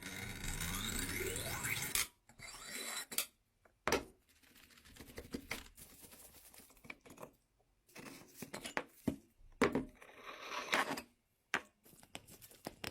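Scraping and rubbing on metal workshop parts, broken by scattered knocks and clinks, during restoration of an old rusty roller cookie machine. It opens with about two seconds of a steady whirring scrape that rises in pitch.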